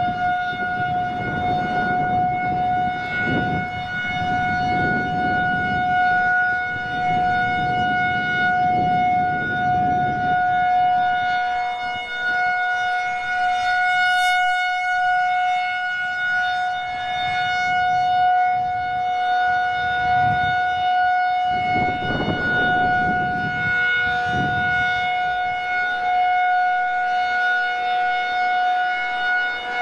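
Federal Signal 2001-SRN electromechanical warning siren sounding a steady single tone at full speed during a routine test, with wind buffeting the microphone in gusts underneath.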